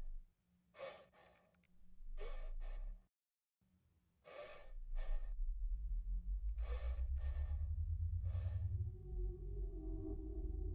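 A woman's heavy, shaky breathing, short breaths coming in pairs every second or two, with a pause of silence a little past three seconds in. From about four seconds in a low rumbling drone runs under the breaths, and a few low held tones join near the end.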